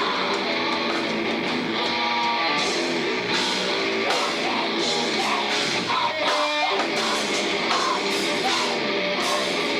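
A live rock band playing loud, with electric guitars and a drum kit, and no vocals.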